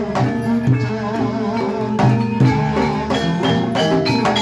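Live jaranan gamelan ensemble playing: kendang hand drums and struck bronze metallophones keep a steady pulse under sustained pitched tones.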